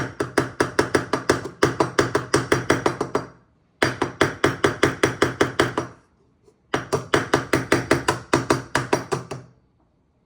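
Rapid, even knocking, about seven knocks a second, in three bouts of two to three seconds with short pauses: hummus ingredients being worked in a kitchen container.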